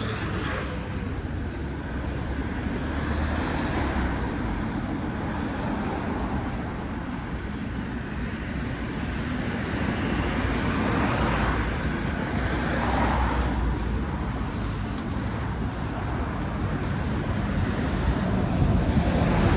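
Street traffic noise: a continuous low rumble of road vehicles, with individual cars swelling past every few seconds.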